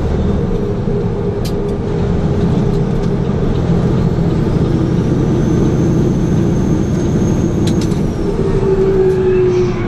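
Heavy truck's engine droning steadily at highway speed, heard from inside the cab along with road noise, with a few faint clicks.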